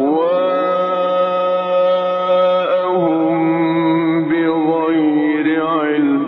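A man's voice reciting the Quran in a melodic, drawn-out chant, holding two long notes with a break about three seconds in; the second is lower and wavers in ornaments near its end. The old recording sounds dull, with no highs.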